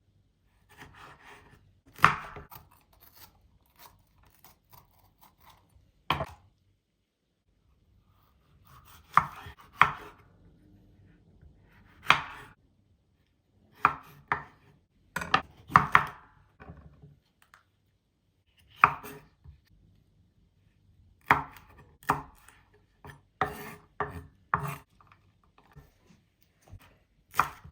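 Kitchen knife chopping food on a cutting board: single sharp knocks at irregular intervals, with a pause of about two seconds some six seconds in.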